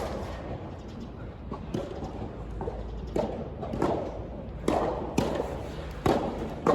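Soft tennis rally: a series of sharp hits as the soft rubber ball is struck by rackets and bounces on the court, about half a dozen impacts at uneven spacing.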